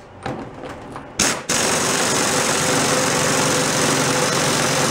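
Pneumatic impact wrench driving the oiled draw bolt of a knockout hole punch, pulling the punch through sheet steel to cut a round hole. After a few short taps, the air tool starts sharply about a second and a half in and runs loud and steady.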